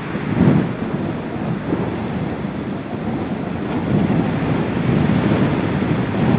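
Gusty wind buffeting the nest camera's microphone: a continuous rushing noise that swells in gusts, strongest about half a second in.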